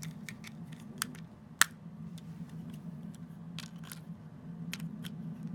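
Small plastic clicks and taps from a cheap MP3 player being handled after its battery is put in, its buttons pressed without it switching on; the sharpest click comes about a second and a half in. A steady low hum runs underneath.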